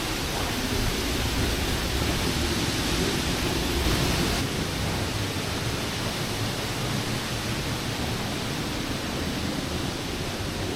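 Steady rushing roar of a large waterfall, the water noise spread evenly from low rumble to hiss. The low rumble eases about four seconds in.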